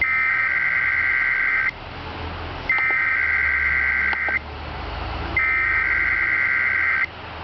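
Emergency Alert System SAME header: three identical bursts of warbling digital data tones, each under two seconds and about a second apart, over a steady radio hiss. The bursts are the coded preamble that opens an emergency alert, here carrying a flash flood warning.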